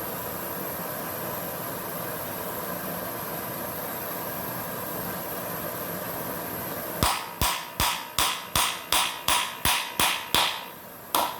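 A heat gun blows steadily. About two-thirds of the way in comes a quick run of about a dozen sharp hammer taps, three or four a second, then one last tap near the end. The taps are driving the heated steel bushing down into the plastic mower wheel's hub.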